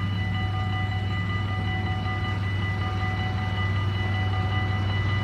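Level-crossing warning bells ringing on without a break, a steady cluster of high ringing tones over a constant low hum, signalling that a train is approaching.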